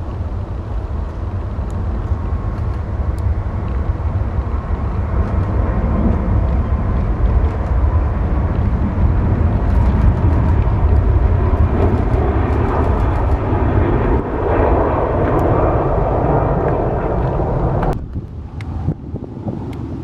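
Jet engines of an Airbus A350-1000, Rolls-Royce Trent XWB turbofans, at takeoff thrust through the takeoff roll and liftoff: a loud, deep rumble with a rushing roar that builds to its loudest past the middle. It cuts off suddenly about two seconds before the end.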